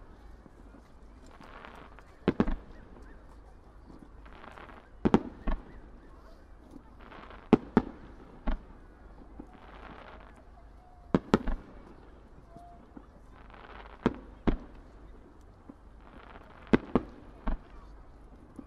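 Aerial firework shells bursting about every three seconds, mostly as close pairs of sharp bangs, each pair preceded by a short rushing hiss.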